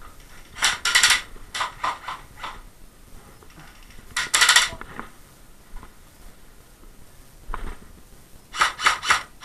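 Short clusters of sharp knocks and clatter inside a small wooden building: a few rapid strokes about a second in and again around two seconds, a denser burst near the middle, one lone knock, and a last quick run of four or five near the end.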